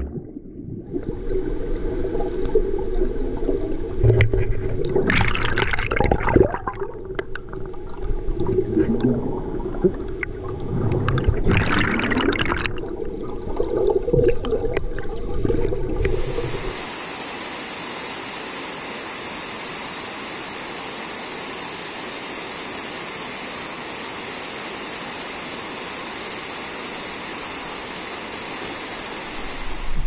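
Water heard from underwater in a waterfall pool: a muffled rumble of moving water and bubbles, with a few louder splashes about five and twelve seconds in. After about sixteen seconds it turns into a steady, even rush of water.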